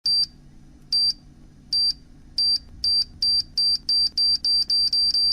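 Electronic beeps speeding up, from about one a second to about four a second: a high steady tone like a countdown timer sound effect.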